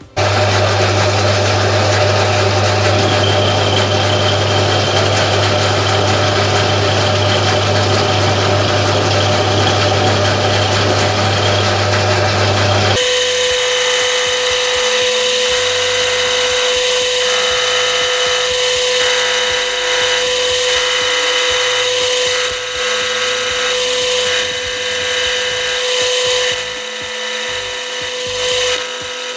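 Metal lathe starting up and running, its three-jaw chuck spinning while a boring tool cuts a hole through three drawn-steel spacer pieces clamped in the jaws. About thirteen seconds in, the sound changes abruptly from a low hum to a steady whine with uneven scraping from the cut.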